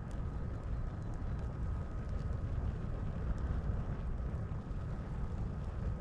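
Campfire burning, with a steady low rumble and sparse faint crackles and pops from the wood.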